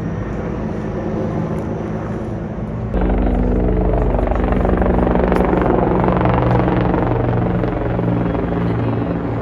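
Helicopter flying, with steady rotor and engine noise that gets louder about three seconds in.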